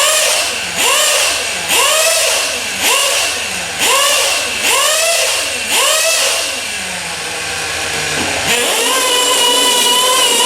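Small RC truck engine revved in quick blips, about one a second, each rising fast and falling back, seven times. About eight seconds in it climbs to a high pitch and holds it steadily at high revs.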